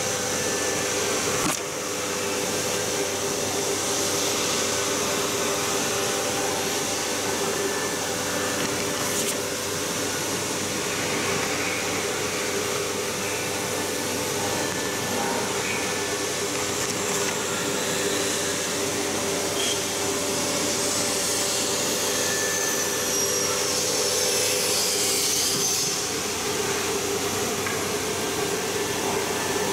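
Steady whirring machine noise with a low hum underneath from workshop machinery running, with a brief dip in level about a second and a half in.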